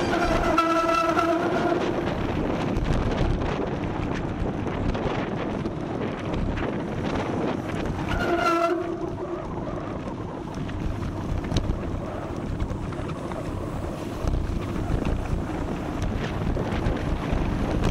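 Wind rushing over an action-camera microphone, with two short, steady horn-like tones: one at the start lasting over a second, and a shorter one about eight seconds in.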